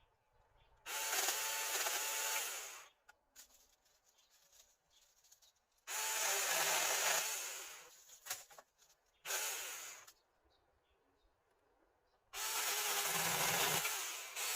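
Battery-powered Saker mini chainsaw cutting small tree branches in three bursts of about two seconds each, with a shorter burst between the second and third.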